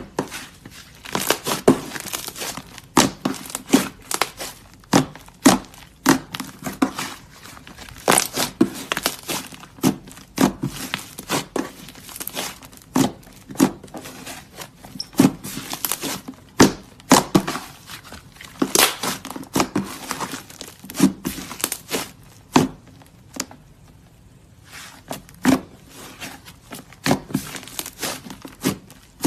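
Fluffy slime being squeezed and stretched by hand, making a dense run of irregular wet clicks and crackles with brief pauses.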